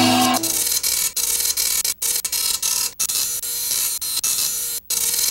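Rapid mechanical typing clatter, a teleprinter-style sound effect for on-screen text being typed out, running in bursts broken by short pauses. A closing music chord cuts off just after the start.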